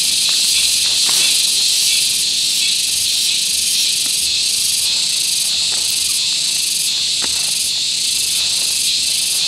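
Loud, shrill insect chorus, continuous with a steady pulsing, with a few faint clicks over it.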